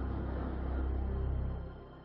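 Background music with a low sustained drone, fading out near the end.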